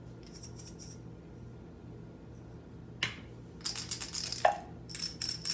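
Wooden sound cylinders shaken by hand, their contents rattling inside, as two cylinders are compared to find a matching pair. A faint shake comes first, then a sharp click about three seconds in and louder rattling near the end.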